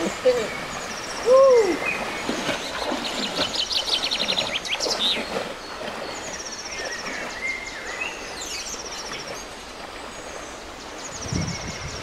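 Songbirds singing in repeated high trills over the steady rush of river water, with two short hooting calls in the first two seconds.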